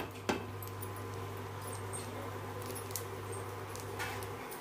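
Faint, sparse crackling of a bread-wrapped puff frying on a hot flat tawa, over a steady low hum. Two light clicks near the start as the steel spatula comes off the puff.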